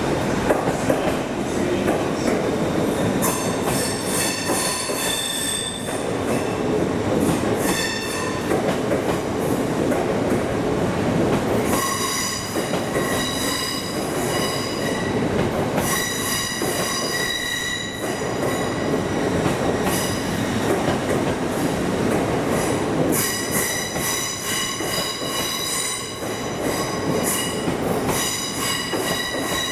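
A train moving through the station with its wheels squealing on the rails, high shrill squeals that come and go over a steady running rumble and grow more frequent about halfway through.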